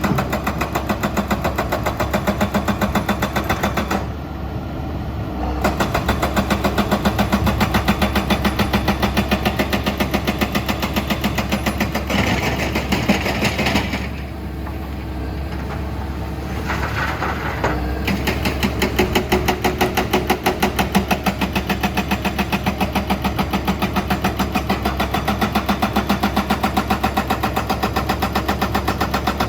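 Excavator diesel engine running with a steady, rapid clatter. It eases off and goes quieter twice, briefly about four seconds in and for a few seconds around the middle, before coming back up.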